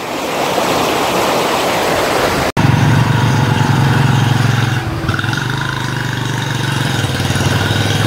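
Rushing stream water for about two and a half seconds, then a sudden cut to a steady low engine hum.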